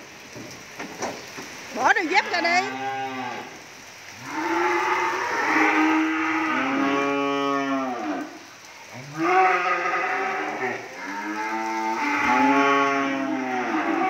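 Cattle mooing: a series of long, loud moos, one after another.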